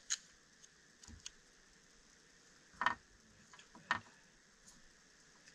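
A few light, sharp clicks and taps, loudest about three and four seconds in, from small fly-tying tools and a thread spool being handled on a stone countertop.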